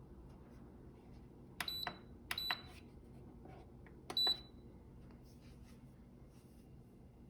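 Three short electronic beeps from a GE dishwasher's control panel, each starting with a click as a button is pressed, about a second and a half in, a little later, and again near the middle. A faint steady low hum runs underneath.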